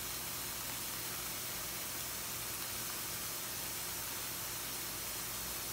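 Pan of chicken feet and seasonings sizzling softly on the stove: a steady, even hiss with a faint low hum underneath.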